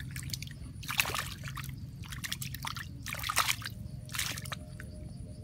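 A hand splashing and sloshing through shallow muddy water, in about four separate splashes.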